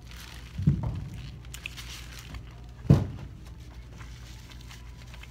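Someone biting into a paper-wrapped breakfast burrito about a second in, then chewing it, with faint wrapper crinkling. A single sharp thump about three seconds in is the loudest sound.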